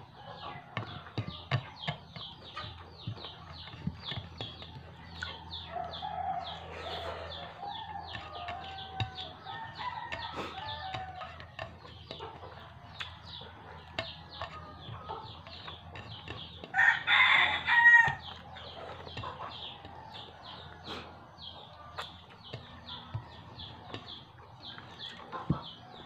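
A rooster crows once, loudly, a little over a second long, about seventeen seconds in, over a steady run of short high ticks and chickens clucking in the background.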